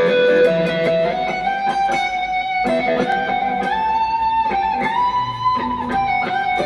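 Electric guitar played through a Cuvave Cube Baby mini multi-effects pedal: a slow lead melody of held, ringing notes that overlap one another.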